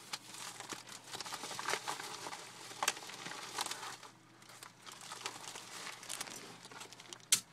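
Thin clear plastic bag crinkling and crackling as the stack of plastic mixing cups inside it is handled, with irregular sharper crackles and a sharp click near the end.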